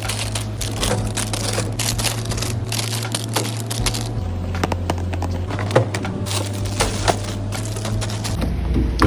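Rapid clicks, taps and light knocks of items being handled and set down, over a steady low hum.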